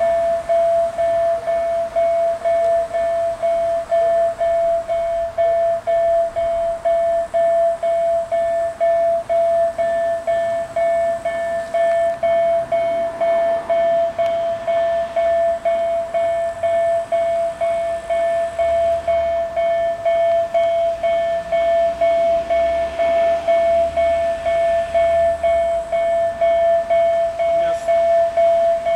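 Level-crossing warning bell ringing a single pitched tone over and over at an even, quick pace, signalling that a train is approaching.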